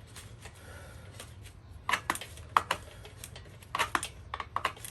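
Sharp metallic clinks and knocks in short clusters as parts are worked off a recumbent tandem trike's seat bracket, over a low steady hum.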